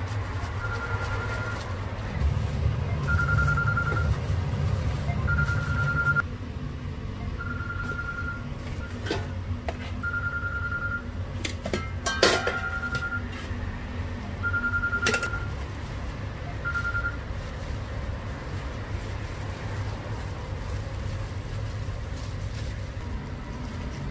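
An electronic beeper sounding a short, same-pitched beep about every two seconds, nine times, then stopping, over a low steady rumble with a few sharp clicks.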